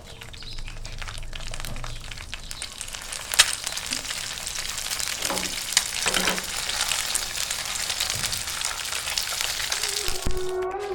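Food sizzling and crackling in a hot pan, with a couple of sharp knocks; music comes in near the end.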